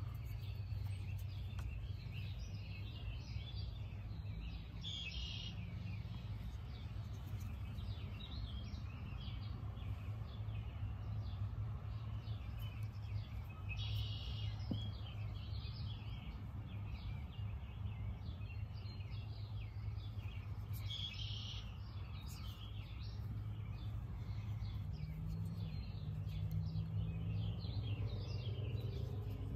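Birds chirping and calling throughout, with a few stronger calls scattered through, over a steady low hum.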